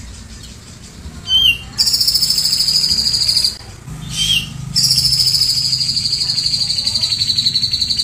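Cucak jenggot (grey-cheeked bulbul) singing. A short chirp comes first, then a loud, rapid, high trill lasting under two seconds. After a brief pause there is another chirp and a longer trill of about four seconds. These are 'tembakan' shot trills copied from a cililin.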